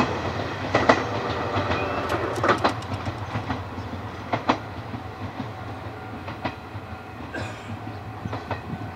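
Electric train on the Izuhakone Railway Sunzu Line, its wheels clacking over rail joints in pairs about every two seconds over a steady rumble, the sound slowly fading as the train moves away.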